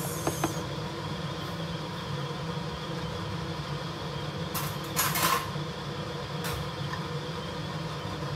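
Kitchen tableware sounds over a steady low hum: a couple of light clicks near the start and a brief clatter of dishes about five seconds in, the loudest moment.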